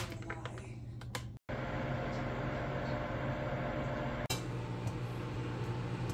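A few faint clicks, then a microwave oven running with a steady low hum.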